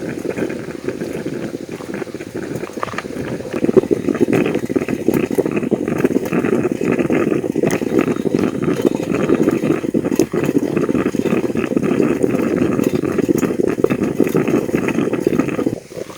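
Coffee percolator boiling over a campfire: a steady bubbling rush with scattered crackles, growing louder a few seconds in and cutting off suddenly near the end.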